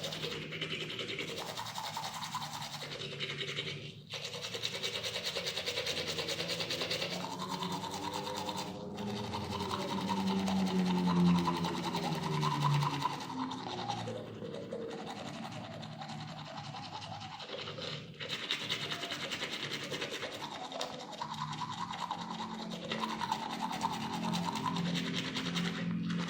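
Toothbrush scrubbing teeth in continuous back-and-forth strokes, with a few short pauses. Around the middle, a low pitched sound rises and falls over the brushing.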